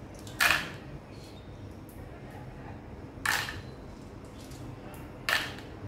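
Three short, sharp clicks about two to three seconds apart: small decorative stones knocking against one another as they are handled and set on top of the potting soil.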